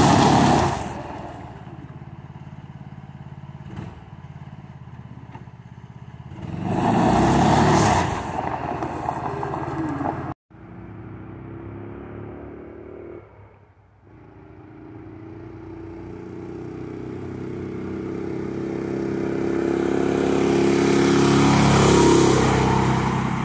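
Duromax 440 single-cylinder small engine driving a go-kart-powered pickup truck: it runs as the truck pulls away over gravel. After a cut, the engine accelerates with a steadily rising pitch as the truck comes closer, passes close by near the end, and fades away.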